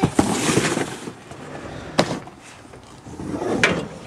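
A sliding screen door rolling along its track, followed by two sharp knocks: one about two seconds in and one near the end.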